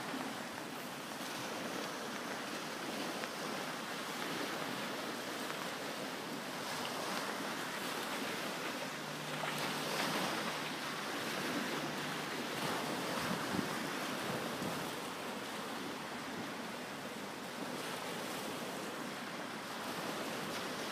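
Small waves breaking and washing up a shingle beach, with some wind on the microphone; a wave breaks a little louder about ten seconds in.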